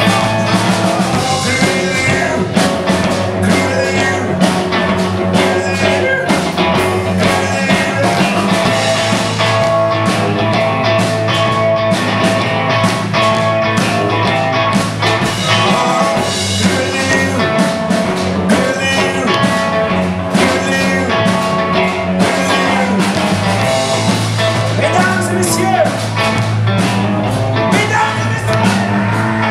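Live rockabilly band playing a fast number, with electric guitar, electric bass and a drum kit.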